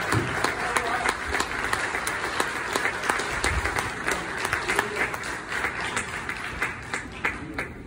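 Congregation applauding, with sharp single claps close by over the general clapping, dying away near the end.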